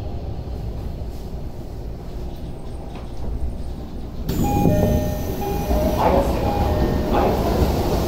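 Tokyo Metro 16000 series train car with a low, steady rumble as it stands at the station stop. About four seconds in, the doors slide open and the brighter, louder sound of the open platform comes in, with a few short electronic tones.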